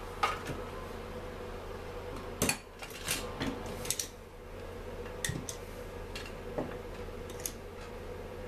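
Hand tools and metal parts clinking and knocking on a workbench as a chainsaw is turned over and handled, a scatter of sharp clicks over a steady faint hum.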